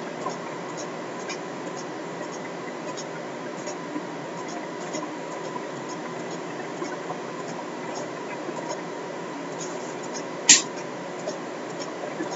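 Scattered faint computer mouse clicks over a steady hiss and a thin electrical tone, with one louder sharp click about ten and a half seconds in.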